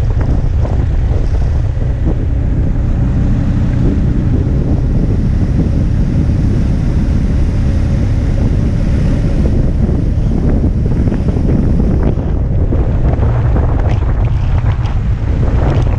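Heavy wind buffeting on the microphone of a camera mounted on a moving motorcycle, a steady loud low rumble, with the motorcycle's engine faintly audible underneath.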